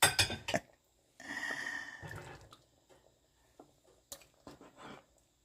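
Vegetable soup being served into a bowl: a few quick clinks of a ladle against the pot, about a second of liquid pouring, then a few light clinks near the end.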